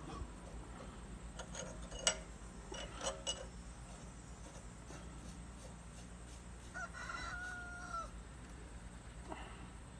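A rooster crows once, about seven seconds in. A few light clicks or knocks come earlier, over a steady low hum.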